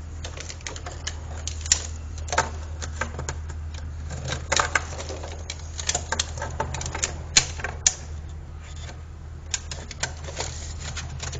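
Rapid, irregular clicks and knocks of hand tools and plastic pipe being handled during drain-stack work, a few sharp louder knocks among them, over a steady low hum.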